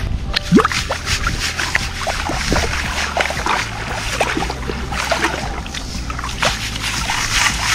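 A round metal sieve being swirled and shaken in shallow river water to wash sand through it while sieving for gems: water sloshing and splashing around the rim, with many small bubbly plops of drops and bubbles.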